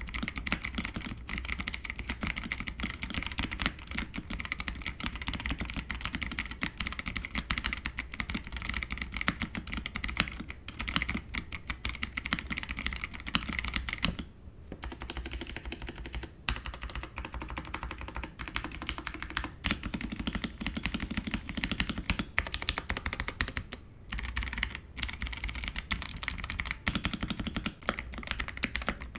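Fast, continuous typing on a gasket-mounted Xinmeng X87 mechanical keyboard with Outemu Brown tactile switches on a polycarbonate plate: a dense run of keystroke clacks, easing briefly about halfway through.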